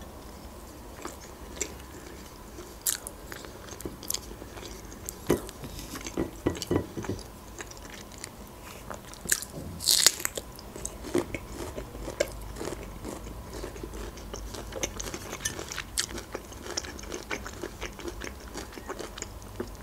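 A person chewing and biting layered cake and peach slices eaten from a fork, with many short mouth clicks. There is a louder bite about ten seconds in, as a peach slice is bitten.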